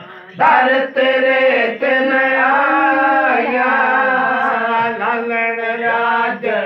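A naat, an Islamic devotional hymn, sung in a chanting style with long held, wavering notes; the singing comes in about half a second in after a brief pause.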